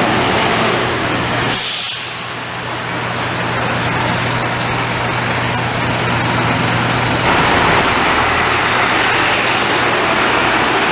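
Orion V city transit bus engine running, with a short hiss of air about a second and a half in, typical of the air brakes releasing. The engine gets louder and fuller about two thirds of the way through as the bus pulls away.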